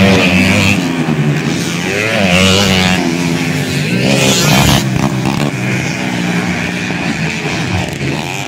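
Several standard underbone motorcycles racing on a dirt track, their engines revving up and down with several engine notes overlapping as they go.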